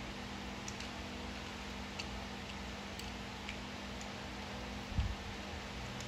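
Faint, scattered light ticks of a screwdriver driving a small screw by hand into a hole drilled in an LS engine's factory oil diverter (barbell), over a steady hum. A single low thump about five seconds in.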